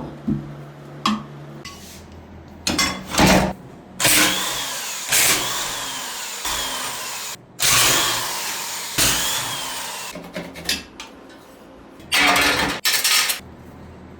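A handheld power tool run in several bursts: two short ones, then two longer runs of about three seconds that start loud and fade, then a final short burst near the end.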